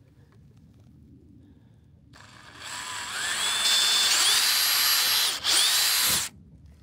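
Cordless drill boring a pilot hole into a wooden stud: about two seconds in the motor whines up to speed, runs steadily for about three seconds with a brief dip, then stops suddenly.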